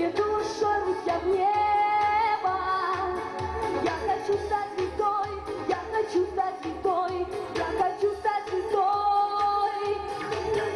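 A young female singer singing a pop song into a handheld microphone over accompanying music with a steady beat.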